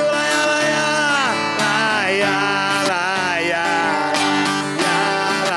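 A man singing live over his own strummed acoustic guitar, his voice gliding between long held notes.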